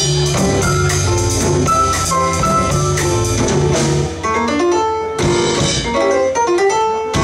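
Live jazz piano trio playing: upright piano, double bass and drum kit. The bass line thins out about four seconds in, leaving mostly piano runs over the drums.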